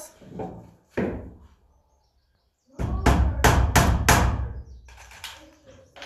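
A couple of knocks, then a quick run of about five hammer blows on a nail in a wooden board, a few seconds in, followed by a few lighter taps.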